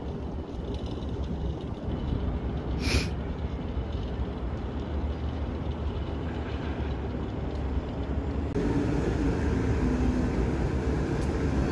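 Wind buffeting a phone microphone: a steady low rumble with one sharp click about three seconds in. About eight and a half seconds in it gives way to a louder outdoor city hum.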